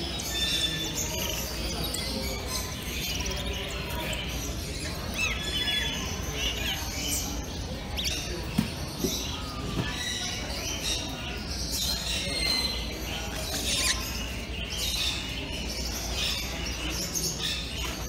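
Many caged birds, canaries and parrots, chirping and whistling all together, with short bright calls overlapping throughout over a steady low hum.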